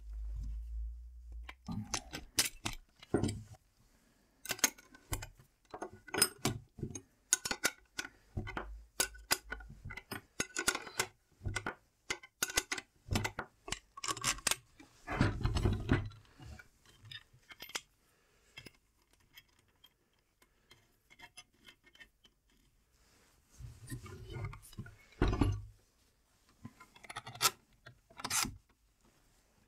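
Hand assembly of metal fittings: a run of clicks, clinks and scrapes as an angle grinder is fastened into a plywood jig with a hex key and bolts. Two heavier thumps, about halfway and near the end, with a quieter stretch between them.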